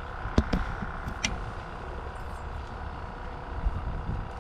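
Boat engine running steadily, a low rumble with a constant whine over it, with a few sharp knocks about half a second and a second in.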